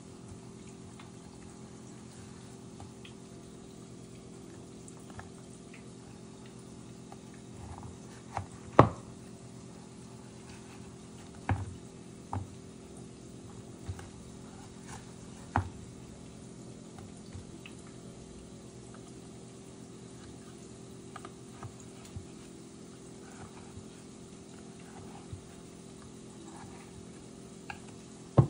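A steady low electrical hum with a few sharp clicks or snaps over it, the loudest about nine seconds in.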